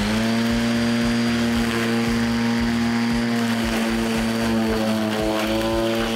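Homemade electric lawn mower's ME0708 DC motor spinning a 21-inch blade at full speed while cutting long grass: a steady, loud whine with strong overtones. Its pitch dips slightly about three and a half seconds in.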